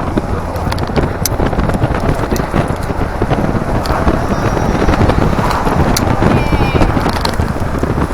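Wind and road noise inside an open-top Daihatsu Copen at expressway speed, with wind buffeting the microphone and many scattered sharp taps on it.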